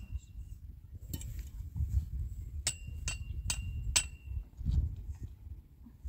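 Sharp metal-on-metal clanks, several ringing briefly, unevenly spaced, with the clearest four about half a second apart near the middle, over a low rumble.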